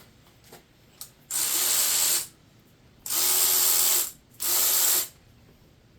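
Air ratchet running in three short bursts of about a second each, a steady motor tone over a hiss.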